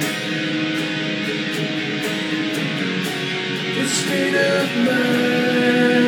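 Instrumental passage of a song led by guitar, with held notes and a few sliding pitches.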